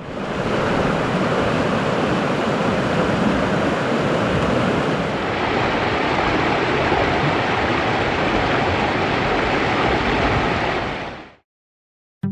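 Steady rush of fast-flowing water, a stream running high after heavy rain, fading out near the end.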